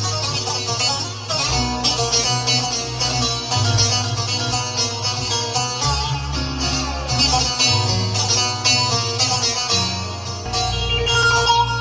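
Korg Pa5X arranger keyboard playing a plucked-string lead over a low bass line and full accompaniment. The bass changes note every second or two.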